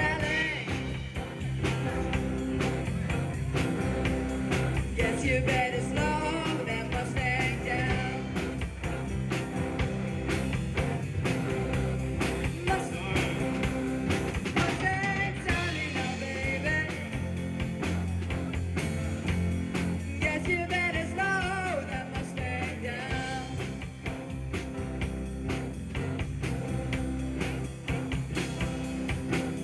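Rock band playing live, with a singer, guitar and a steady drum beat: a sound-check run-through.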